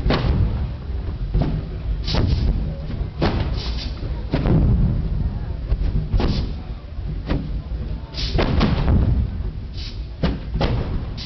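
The Large Hot Pipe Organ, a fire-powered pipe organ, firing blasts from its pipes at irregular intervals, a dozen or so, some in quick clusters of two or three, over a steady low rumble.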